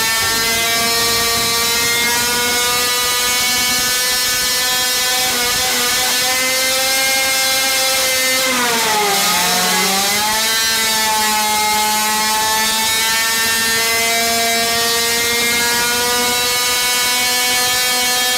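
A supercharged 50cc two-stroke engine on methanol-nitromethane fuel, running hard at about 14,000 rpm with a high, steady buzzing note. About eight and a half seconds in, the revs sag briefly and then climb back, and the note rises slowly toward the end.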